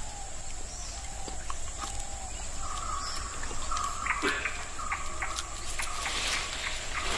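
Forest soundscape around Hanuman langurs feeding in the trees: a steady high whine, scattered clicks and rustles of twigs and leaves, and short clear animal calls repeated several times in the second half.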